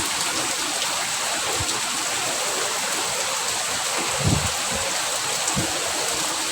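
Heavy rain pouring steadily, with a few brief low gusts of wind buffeting the microphone.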